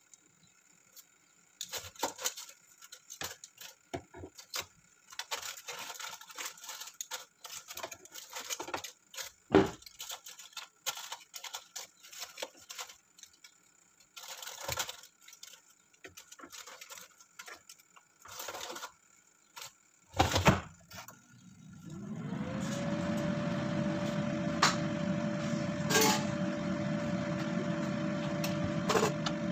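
Aluminium foil crinkling and metal tongs clicking against the air fryer basket as lamb is turned, with a couple of sharp knocks. About twenty seconds in the basket is shut with a thump, and the Philips air fryer's fan starts, its hum rising in pitch and then settling into a steady whir.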